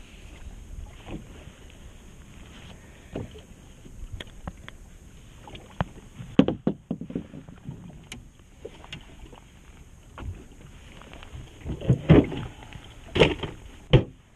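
Handling noises on a small fishing boat as a caught rockfish is unhooked and moved: scattered knocks, clicks and clunks over a faint steady background of wind and water, with louder clunks about halfway through and again near the end.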